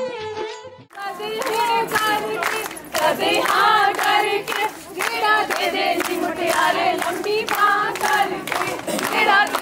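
A group of women singing together and clapping in time, a live Punjabi folk song for a circle dance with no instruments. It comes in when a recorded music track cuts off just under a second in.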